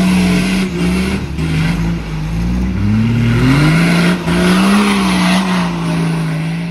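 Off-road 4x4's engine revving hard as it pushes through deep mud, its pitch climbing with the throttle a few seconds in and then settling.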